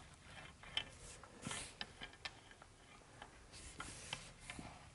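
Edge roller on an extension pole running watery water-based epoxy primer along the edge of a concrete floor: faint soft swishes with scattered light clicks and taps.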